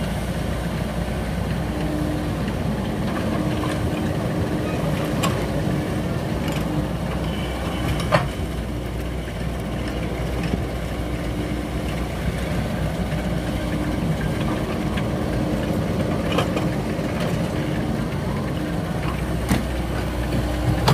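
Mini excavator's diesel engine running steadily as it digs and loads earth, with a whine that comes and goes as the arm works. A few sharp knocks stand out, the loudest about eight seconds in.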